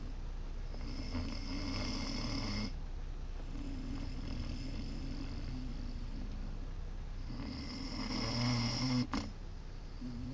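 Great Dane puppy snoring: slow snoring breaths over a faint steady hum. The loudest breath comes near the end and is cut off abruptly by a click about nine seconds in.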